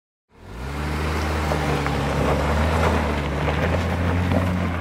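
Jeep Gladiator's engine running steadily under load as the truck crawls up a loose rocky slope, its note rising briefly as it comes in, with tyres crunching on gravel and stones.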